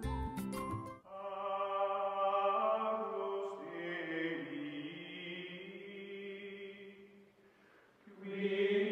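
Outro music: a chime-like jingle ends about a second in, then a choir chants long held notes. The chant fades away around seven seconds in and starts again near the end.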